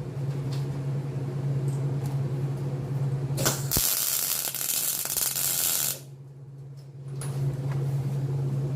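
Welding arc crackling and hissing for about two and a half seconds near the middle, a short tack weld fixing a chain to a steel welding table. A steady low hum runs under it before and after.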